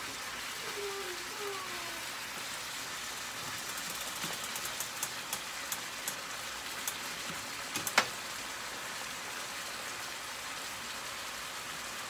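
Ground beef sizzling in a skillet: a steady hiss with scattered crackles and pops, and one sharp knock about two-thirds of the way through.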